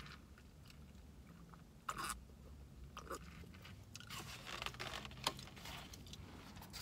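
Quiet sips and swallows from a disposable fountain-drink cup drunk straight from the cup, no straw, with a louder sip about two seconds in. Near the end come small clicks and rubbing as the cup is lowered and handled.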